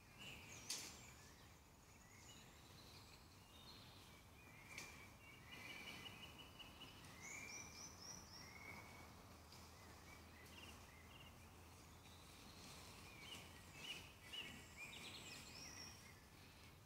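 Faint woodland birdsong: several birds singing short chirps and quick repeated-note phrases over a low, steady background hiss, with a few sharp clicks, the loudest about a second in.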